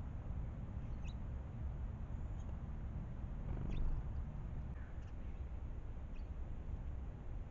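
Small songbirds giving a few short, high chirps, spaced a second or more apart, over a steady low rumble.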